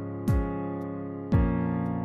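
Background music: held keyboard chords over a deep, pitch-dropping thump that lands about once a second.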